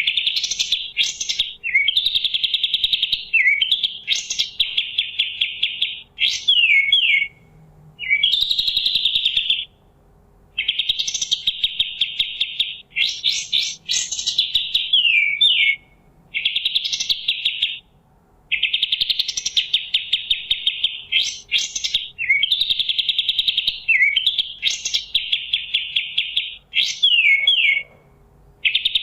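Kapas tembak songbird singing: repeated bursts of a rapid, buzzy chattering trill, each lasting one to two seconds, several ending in a few quick downward-sweeping notes, separated by short pauses.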